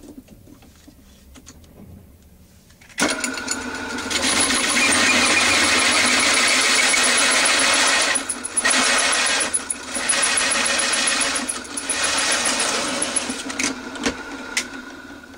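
Drill press running a 64 mm Kraftool hole saw that cuts into a wooden board. The motor starts suddenly about three seconds in. The cut is loud and steady with a few brief dips, eases off, and stops just before the end.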